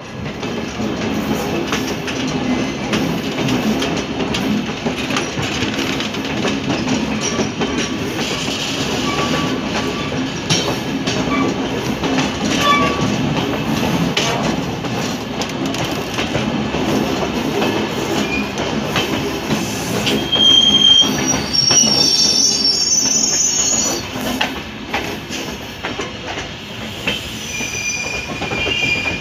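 Indian Railways passenger coaches rolling slowly on the rails, with a steady wheel rumble and clattering over rail joints. High metal-on-metal wheel squeals start about two-thirds of the way through and come back near the end.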